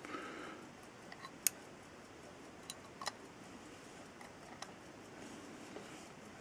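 Scattered light clicks of brass tweezers and small brass watch parts touching as a bridge is set onto a pocket watch movement, the sharpest about a second and a half in, after a brief soft rustle of handling at the start.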